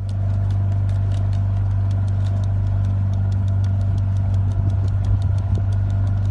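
A steady low machine hum, engine-like, that fades in at the start, with a fast, even ticking over it.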